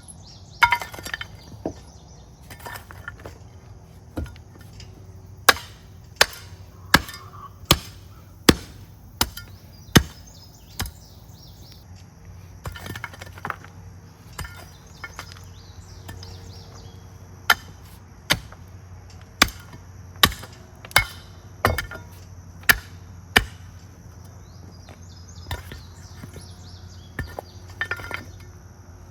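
A hand tamping tool striking the rocky backfill around a freshly set post: sharp, clinking impacts in two runs of steady blows, about one every three-quarters of a second, with scattered lighter knocks between.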